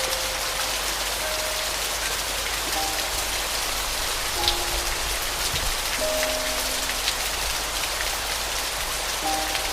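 Steady rain falling with scattered drop ticks, over a few soft, sparse, sustained piano notes.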